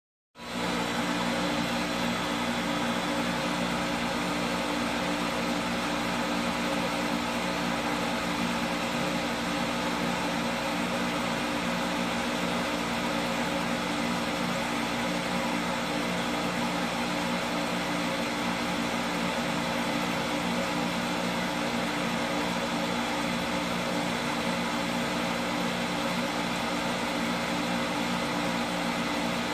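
Household well water pump motor running steadily, a constant mechanical hum with several steady tones, with no cut-out or restart.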